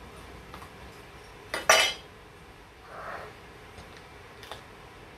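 A large knife chopping into the top of a fresh young coconut: one loud strike with a short metallic ring about a second and a half in, and a lighter sharp tap near the end.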